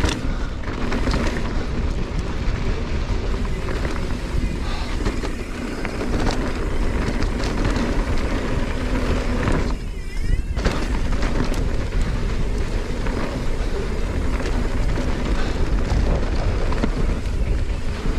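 Mountain bike riding down a dirt trail: wind buffeting the camera microphone and tyres rolling over the dirt, with scattered rattles and clicks from the bike. The rush eases briefly about ten seconds in.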